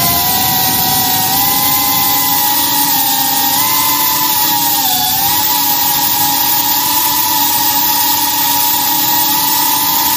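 Quadcopter drone's electric motors and propellers, heard from its onboard camera: a loud, steady high whine whose pitch shifts a little with throttle and dips briefly about halfway through.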